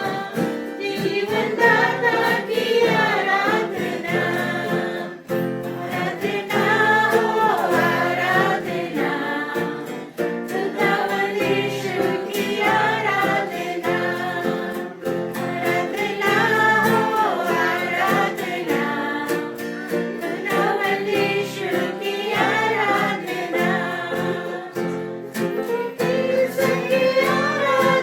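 A group of voices singing a Hindi Christian worship song with instrumental accompaniment.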